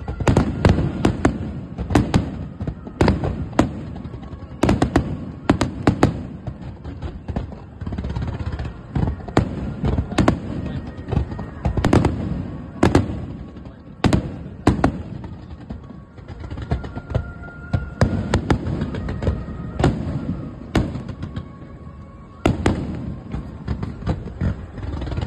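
Aerial firework shells bursting in rapid succession, a dense run of sharp bangs and thuds, thinning briefly in two quieter stretches.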